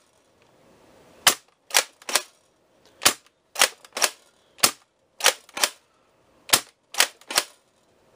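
Rekt OpFour CO2-powered pump-action foam dart blaster dry-fired with no dart loaded, pumped and fired about four times. Sharp pops of gas release and clacks of the pump come in groups of three, one group every second and a half or so. Firing empty spreads the CO2 cartridge lubricant through the gas system.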